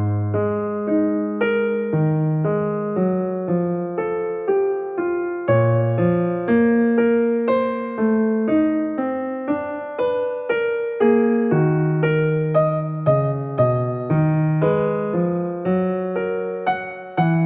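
Background piano music: a gentle, steady run of single notes, about two a second, over sustained lower notes.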